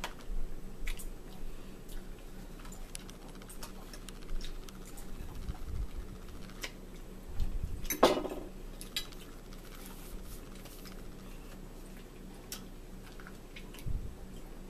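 Eating at a table: a metal fork clicking against plates and chewing, with scattered small clicks and a few low thumps. About eight seconds in comes a short voice sound, the loudest moment.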